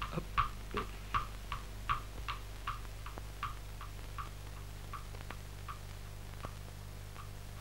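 Hoofbeats of a horse drawing a cab, an even clip-clop at about three beats a second that grows fainter and dies away as the cab moves off. A steady low hum runs underneath.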